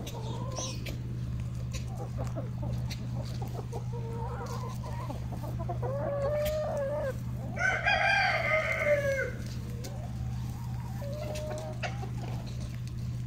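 A flock of free-range laying hens clucking and calling on and off, with one longer, louder call about eight seconds in, over a steady low hum.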